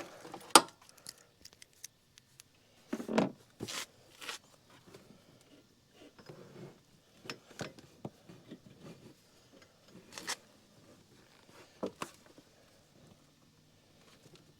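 Scattered handling noises from hands working in a scooter's open engine compartment: sharp clicks and knocks with short rustling and scraping sounds, the loudest click about half a second in.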